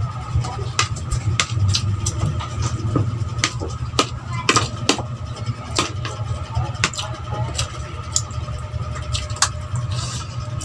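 Close-miked eating: chewing and lip-smacking clicks, irregular, about one to three a second, over a steady low hum.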